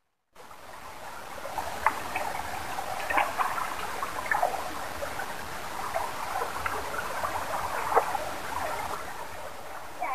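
Shallow rocky stream running and trickling over stones, with a few sharper splashes. It starts abruptly just after the beginning.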